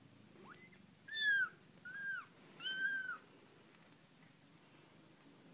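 Young kittens mewing: three high-pitched mews in quick succession about a second in, each curving down at its end, with a fainter, shorter mew just before them.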